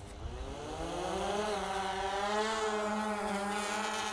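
Quadcopter drone lifting off: its propeller motors spin up in a rising buzz, then settle into a steady, slightly wavering whine.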